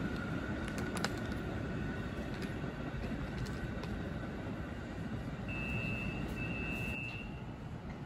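Subway train pulling away down an open-air track: a steady low rumble with a faint high whine that fades over the first few seconds. A couple of sharp clicks come about a second in, and a thin high tone sounds twice near the end.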